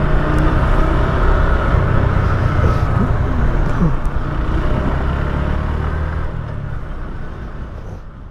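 A motorcycle engine running on the move, with road and traffic noise, picked up by a mic inside the rider's helmet. It fades out near the end.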